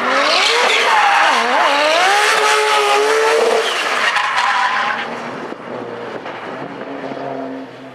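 A 1000 PS RB26 twin-turbo straight-six in a Nissan Silvia S15 drift car, revving hard with the pitch swinging up and down as the throttle is worked, over screeching rear tyres in a smoky drift. The sound drops off about five seconds in as the car moves away.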